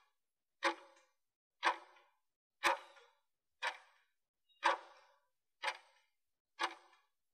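Clock-tick sound effect of an interval timer, one short tick a second, seven in all, counting down the last seconds of a 20-second work interval.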